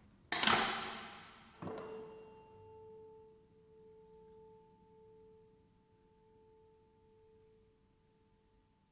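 Contemporary chamber ensemble music: a loud sharp attack that rings and dies away, a second softer attack a second or so later, then a single quiet pitch held steadily for about seven seconds as it slowly fades.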